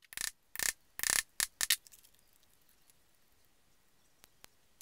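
Small 1/8 inch gold metal rivets clicking against each other and the wooden surface as they are picked from a pile and handled: about six sharp clicks in the first two seconds, then quiet handling.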